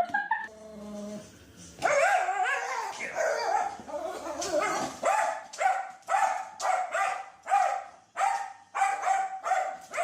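A dog barking in a regular run of short, rising-and-falling barks, about two a second. This follows a few seconds of continuous, wavering vocalising that starts about two seconds in.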